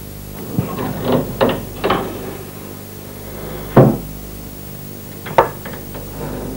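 Food bowls knocking and clattering against each other and the floor as they are handled during a meal: a scatter of short knocks, the loudest about four seconds in and another about a second and a half later, over a steady low hum.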